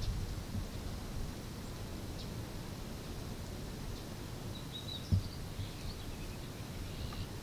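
Quiet outdoor ambience: a steady low rumble, with faint bird chirps a few seconds in and a single dull thump about five seconds in.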